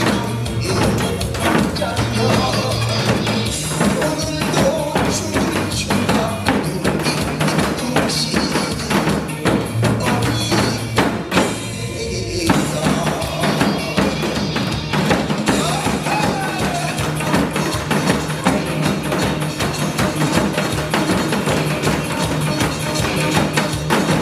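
Upbeat recorded music with janggu, the Korean hourglass drum, played along with it in dense, rapid strokes.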